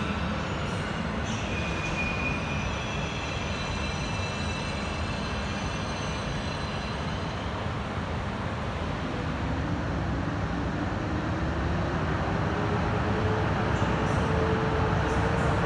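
PKP Intercity ED250 Pendolino electric train rolling slowly into the platform, a steady rumble growing louder as it nears, with thin high squeals in the first half and a tone rising slowly in pitch through the second half.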